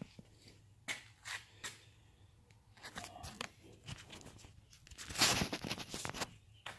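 Handling noise from a handheld phone camera being moved and turned around: scattered small clicks and crackles, with a louder rustling stretch about five seconds in.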